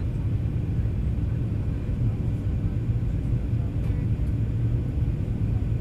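Steady low rumble of cabin noise inside a Boeing 737-800 in flight, from airflow and its CFM56-7B engines, with a faint steady hum above it.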